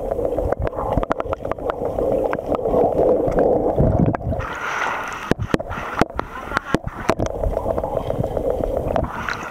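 Lake water heard through a submerged camera: muffled gurgling and sloshing, with many small knocks, as a dog paddles past close by. A little after halfway, brighter splashing breaks in for a couple of seconds.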